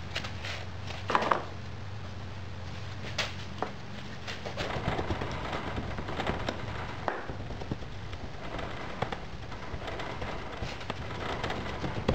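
Loose moulding sand being scooped and dropped by hand into a metal moulding box, a gritty crackle and patter of falling sand with a few sharper knocks, getting busier after a few seconds.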